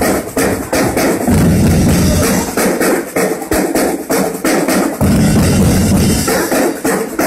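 A drumbeater troupe of many drums playing a fast, dense rhythm, the strokes coming thick and close together. Heavy bass drums swell in about a second in and again about five seconds in.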